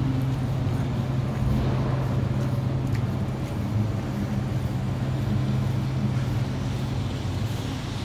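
Steady low engine hum from a motor vehicle, over street traffic noise.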